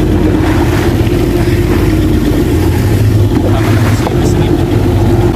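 Rescue boat's engine running steadily under way, with water rushing and splashing along the hull.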